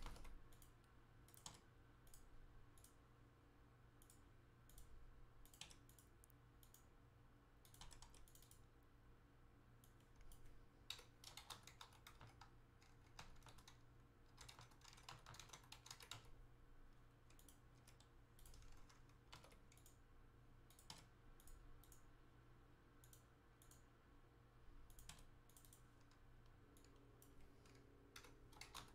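Faint computer keyboard typing, short keystroke clicks in irregular clusters, over a faint steady low hum.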